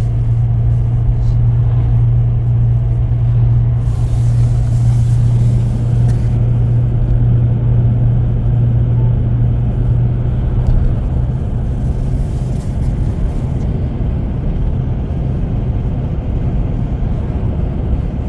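Steady low drone of a car's engine and road noise, heard inside the cabin while driving.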